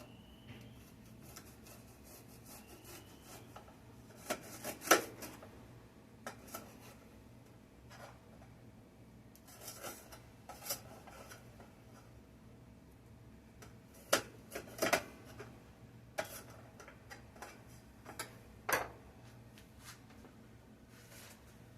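Scattered clicks, knocks and rubbing of dishes and utensils being handled on a kitchen counter, the loudest knock about five seconds in. A faint steady hum runs underneath.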